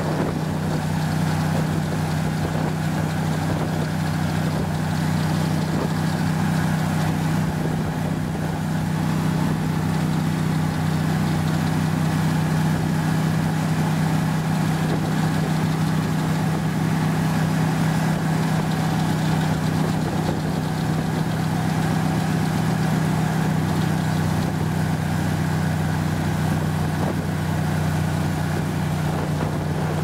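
A motor vehicle's engine running at a steady speed while travelling: an unbroken low hum that holds the same pitch throughout.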